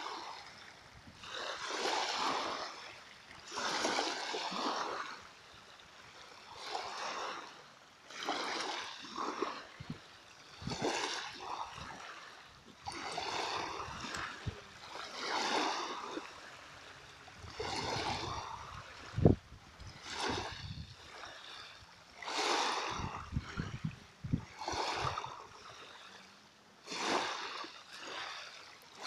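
Small waves lapping and splashing at the water's edge, a gentle wash coming in every two seconds or so. A single sharp thump stands out about nineteen seconds in.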